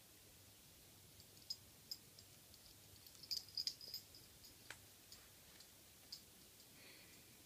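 Faint, sharp little clicks and ticks, scattered and irregular, with a quick cluster about three to four seconds in, over the hush of a quiet room.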